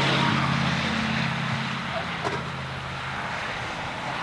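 Car engine running with a steady low hum that stops about three seconds in, as a car pulls up and is switched off.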